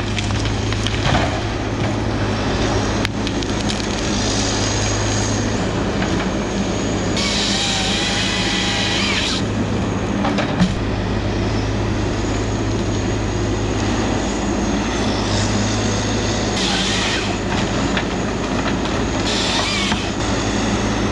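John Deere 753G harvester's diesel engine running steadily under load. Three bursts of high hiss come and go from the machine working, and one sharp knock sounds about ten and a half seconds in.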